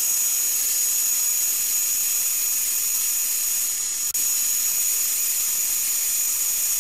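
High-voltage spark arcing continuously across a spark plug's gap, driven by a homemade dual ignition coil circuit at 40–60 kilovolts: a steady loud hiss with a high whine above it. It cuts out for a moment about four seconds in.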